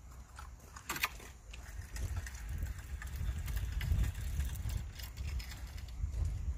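Light clicks and a knock from fishing rods and their rest being handled, about a second in, then a low rumble that swells from about two seconds in.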